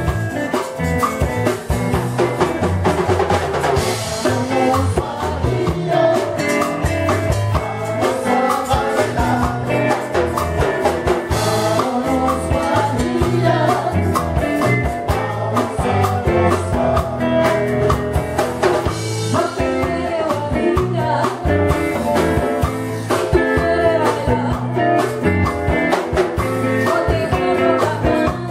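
Live salsa band playing a guajira: male voices singing over electric guitar, bass and drum kit, with a steady beat.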